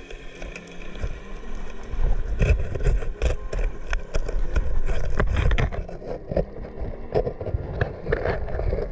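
Underwater sound on a diver's camera: a low rumble of moving water with many sharp clicks and crackles, growing louder about two seconds in.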